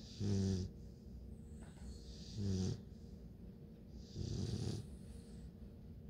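Bluetick Coonhound puppy snoring in its sleep: three snores about two seconds apart. The first two have a steady low buzz and the third is breathier.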